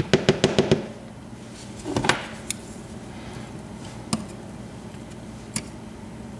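Small sharp metallic clicks and taps from a disassembled Pacific Lock 100A padlock as its pin springs are worked out: a quick run of about seven clicks in the first second, a brief scrape about two seconds in, then single clicks every second or so.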